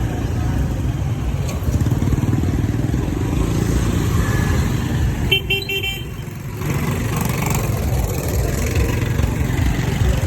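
Street traffic with motorbike engines giving a steady low rumble, and a short horn honk about five seconds in.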